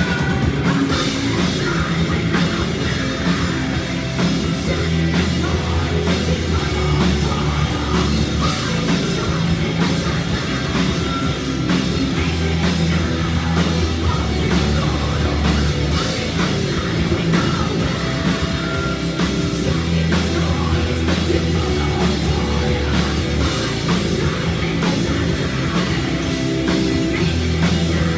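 Live heavy metal band playing, with distorted guitars, thick sustained bass notes and a dense, driving drum kit.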